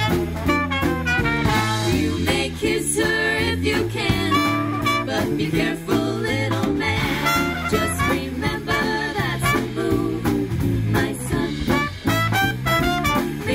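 Live swing band playing, with female vocal harmony sung over trombones, saxophones, electric guitar and drums.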